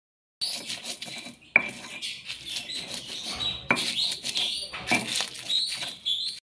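Stone pestle (ulekan) crushing and grinding chilies, shallots and garlic on a stone mortar (cobek) for sambal: scraping and squashing with a few sharp stone-on-stone knocks.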